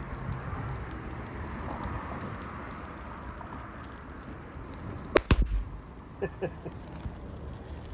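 A capacitor on a burning circuit board bursts with a sharp, loud bang about five seconds in, over the steady hiss and crackle of the fire. A couple of smaller pops follow about a second later.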